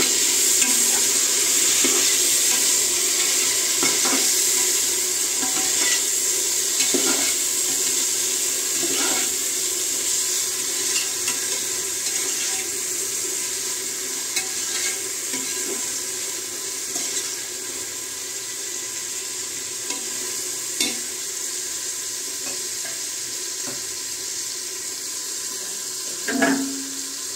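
Chopped tomato and onion sizzling in hot oil in an aluminium pressure cooker; the sizzle is strongest at first and slowly eases. A metal slotted ladle knocks and scrapes against the pot now and then as it is stirred, with a louder clank near the end.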